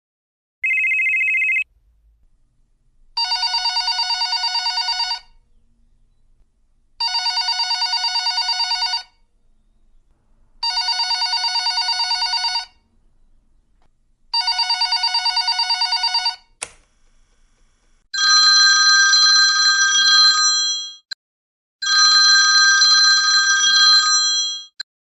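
Telephone ringing sound effects: a short tone, then four trilling rings of about two seconds each, evenly spaced, and a click. After that comes a different ring, steadier and brighter, in bursts of about three seconds.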